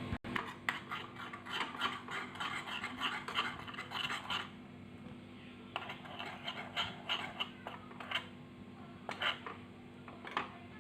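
A spoon scraping and clicking against a small pan while turmeric powder is stirred into hot ghee. The scrapes come quickly for the first few seconds, then turn sparser and more spaced out.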